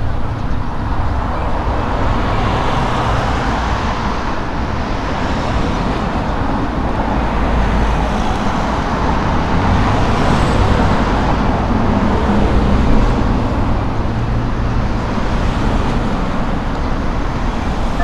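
Road traffic on a city street: cars passing close by, a steady hiss of tyres and engines that swells as a car goes past about ten seconds in.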